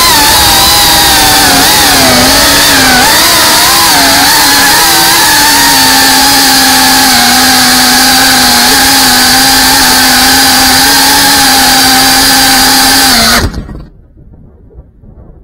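FPV quadcopter's brushless motors and propellers whining loudly, pitch wavering with throttle changes and then holding steady, until they cut off suddenly near the end as the quad comes down.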